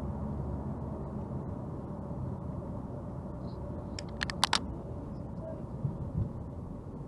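Steady low road and engine noise heard from inside a car cabin at highway speed. A quick cluster of sharp clicks about four seconds in.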